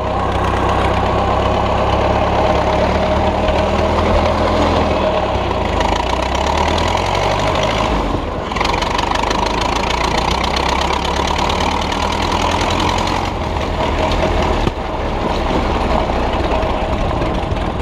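1927 Ford Model T four-cylinder engine of a homemade tractor running steadily as the tractor drives along. The loudness dips briefly about eight seconds in and again near fifteen seconds.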